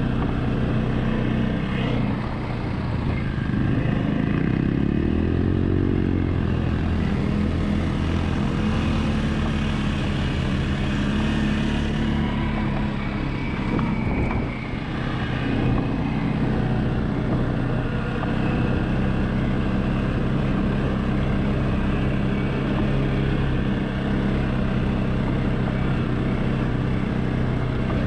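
ATV engine running steadily as the quad is ridden over rough grassy ground, its pitch rising and falling briefly about five seconds in.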